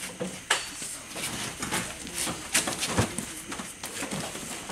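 Scattered knocks and scuffs on a pickup's metal tread-plate bed as handlers move a baby elephant in the cage, with a few faint low sounds between them.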